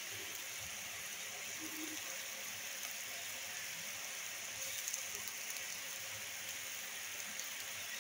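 Sugar syrup of water and sugar heating in an aluminium kadhai on a gas stove: a steady, soft hiss of it simmering.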